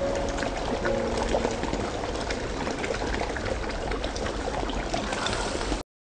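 Water pouring and splashing down a pond's rock waterfall: a steady rush with many small splashes. Music fades out in the first second, and the sound cuts off suddenly near the end.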